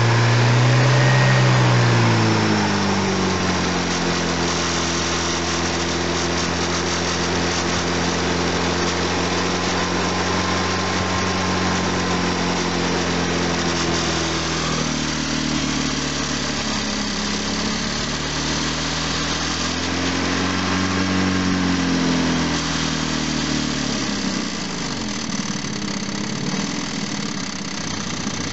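ZMZ 409 four-cylinder fuel-injected petrol engine idling, its speed settling down about a second in and rising and falling a few times later. The engine has a knock, which the uploader links to the timing drive.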